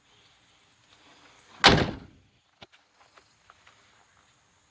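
A pickup truck door slammed shut once, a heavy metal bang with a short ringing decay, followed by a few faint small clicks.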